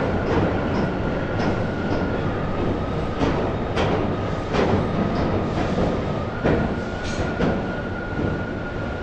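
Passenger train running on rails: a steady rumble with sharp clacks of the wheels over rail joints at uneven intervals and a faint steady whine.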